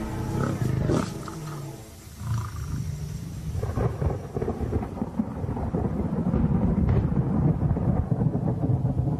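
Lions growling in low rumbles, quieter around two seconds in, then louder and steady from about four seconds in.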